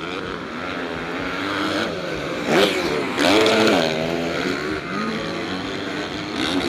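Motocross motorcycle engines revving on a dirt track, their pitch rising and falling again and again as the riders work the throttle. Several bikes overlap, loudest from about two and a half to four seconds in as one passes close.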